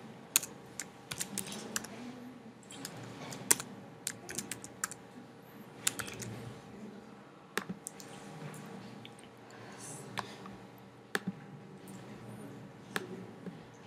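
Computer keyboard typing in short irregular runs, then a handful of separate single clicks from a computer mouse.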